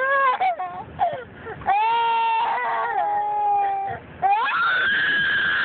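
A young boy crying in distress: short sobs, then a long drawn-out wail about two seconds in and a higher, longer wail near the end.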